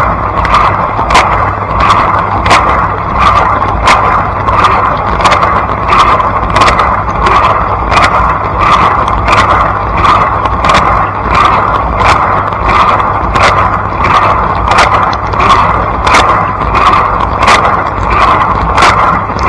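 Water spraying inside a running Blanco dishwasher, heard from inside the tub: a steady rush of water with a regular pulsing splash as the spinning spray arm sweeps its jets past.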